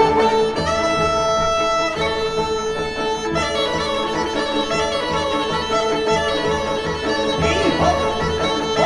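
Background instrumental music: a melody of long held notes over a steady drone and a regular low beat.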